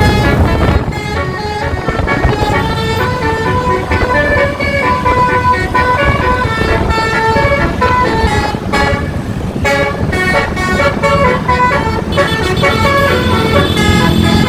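Indonesian basuri (telolet) bus horn with roof-mounted trumpets playing a melody of short notes that step up and down in pitch every fraction of a second.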